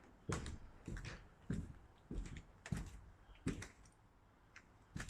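Footsteps of a person walking at a steady pace indoors, a little under two steps a second, pausing briefly about three-quarters of the way through before a couple of lighter steps.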